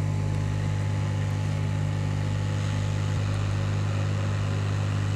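Steady low electrical hum, unchanging in pitch and level throughout.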